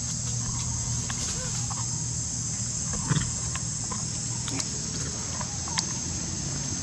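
A steady high-pitched insect drone over a low steady hum, with scattered faint short squeaks and rustles and a short louder thump about three seconds in.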